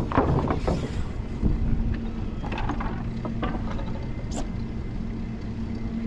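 Riding noise on a fixed-gear bicycle: a steady rumble of wind and road, with rattling clicks in the first second. A steady low hum sets in about a second and a half in, and a brief high squeak comes near the end.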